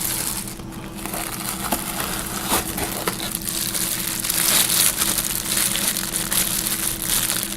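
Plastic packaging crinkling and rustling as it is handled and unwrapped, with scattered small clicks, over a steady low hum.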